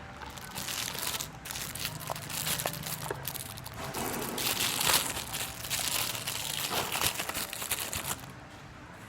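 Packaging crinkling and rustling as it is handled, in dense irregular bursts that stop shortly before the end.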